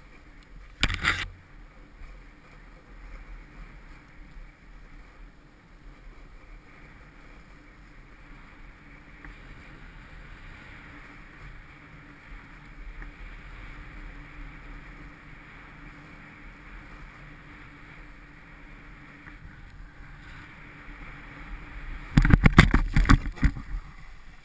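Snowboard sliding over packed snow: a steady scraping hiss from the board, with one loud knock about a second in. Near the end, a burst of loud scrapes and thumps as the rider falls and skids to a stop sitting in the snow.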